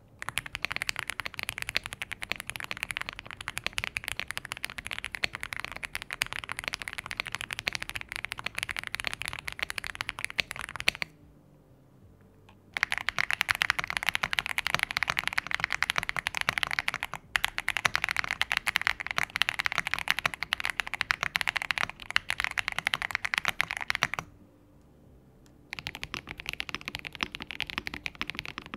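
Typing sound test on a Spectre 75 gasket-mounted 75% mechanical keyboard: fast continuous keystrokes in three long runs with two short pauses, the middle run the loudest. A sound its reviewer calls creamy out of the box.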